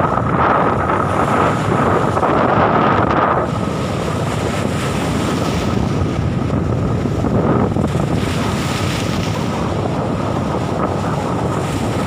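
Strong wind buffeting the microphone, gustier and louder for the first few seconds and easing slightly after about three and a half seconds, over choppy sea waves washing against the shore.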